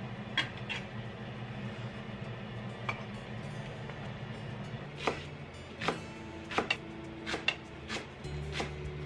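Chef's knife striking a wooden cutting board: two taps near the start and one a little later, then a run of irregular chops from about five seconds in as a green onion is sliced.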